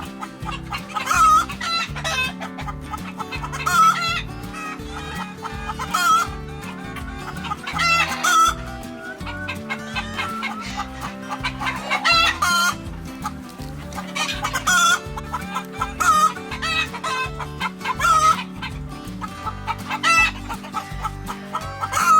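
Chickens clucking and a rooster crowing, short calls coming every second or two, over background music with a steady beat.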